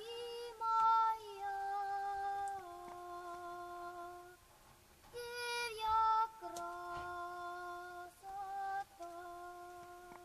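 Background music: a slow melody of long held notes in a soft, humming, voice-like tone.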